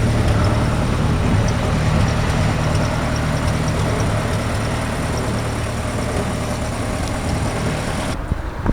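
Car engine idling steadily, with a broad hiss over it that cuts off abruptly near the end.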